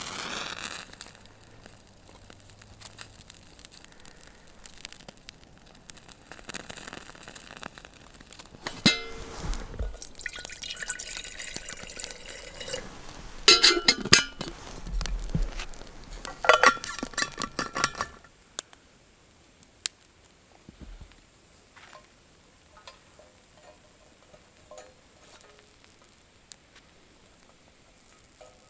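Camp cooking gear being handled: liquid poured and stirred, with pot and utensils clinking. After about 18 seconds it goes much quieter, leaving scattered faint ticks.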